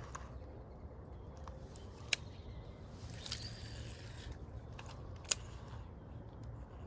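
Fishing rod and reel being handled: two sharp clicks, about two and five seconds in, with a short whirring hiss between them, over a low steady rumble.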